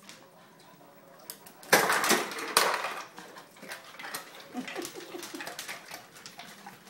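Refrigerator door ice dispenser dropping ice cubes, pushed by a dog's muzzle on the dispenser paddle: two loud clattering rattles a little under two seconds in, about a second apart, then lighter clicks and knocks.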